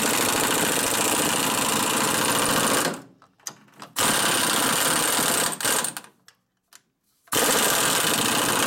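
Impact wrench run in three bursts, running a Loctited nut down onto a splined shaft with a fast, even hammering rattle that stops dead between bursts.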